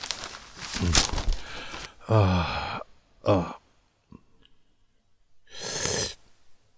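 A man's sighs and short falling grunts over newspaper rustling. A single light click of the teacup comes about four seconds in, then a slurping sip of tea near the end.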